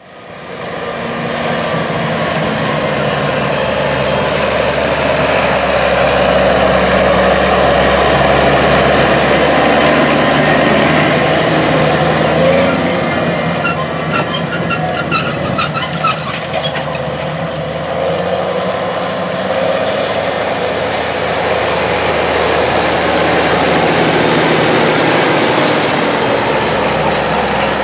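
New Holland TG210 tractor's diesel engine running steadily under load while pulling a Great Plains Turbo Till tillage tool through the soil, growing louder and softer as it passes. About halfway through comes a short run of clicking and clattering.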